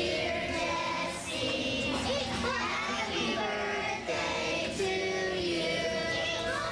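Several children singing together, their voices overlapping.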